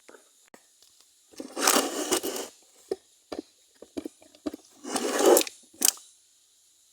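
Liquid detergent squeezed from a plastic bottle into a slime mixture: two short, noisy squirts, with small clicks and knocks of handling in between.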